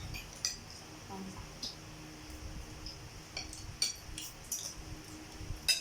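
Cutlery clinking and scraping on a plate while eating spaghetti: short sharp clinks at irregular intervals, the loudest one near the end.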